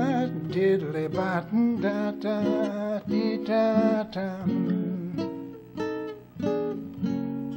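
Acoustic guitar fingerpicked solo, a steady run of separate plucked notes and chords forming an instrumental break between sung verses.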